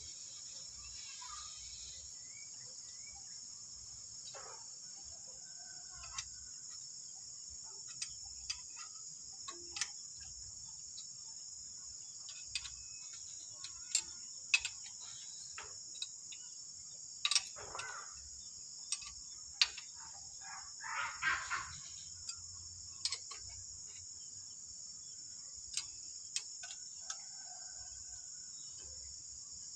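Steady high insect chirring throughout, with scattered light metallic clicks and taps from hand tools on an engine's open valve train. Two louder, longer rattles come a little over halfway through.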